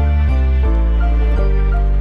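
Background music: slow, gentle instrumental with sustained chords and a deep bass note, changing chords about every second.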